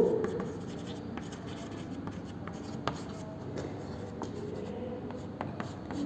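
Chalk writing on a chalkboard: a soft, steady scratching with scattered light taps of the chalk against the board.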